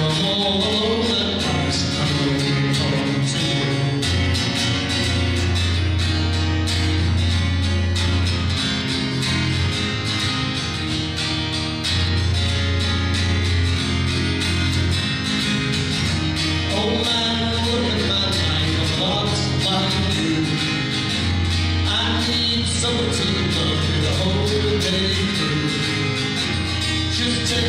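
A man singing while playing a steel-string acoustic guitar.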